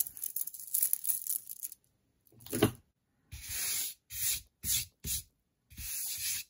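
Hands handling beaded bracelets on a poster-board tabletop: crackly rustling with small clicks for the first couple of seconds, then a run of about five short scraping swishes.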